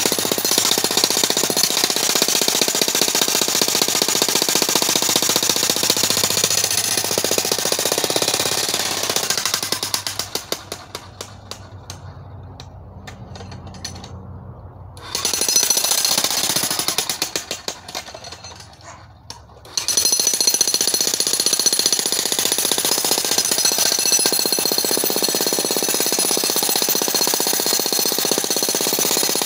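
Electric demolition hammer (jackhammer) pounding into rock in rapid, steady blows. The hammering eases off twice about a third and two-thirds of the way through, with a brief burst between the lulls, then resumes at full strength.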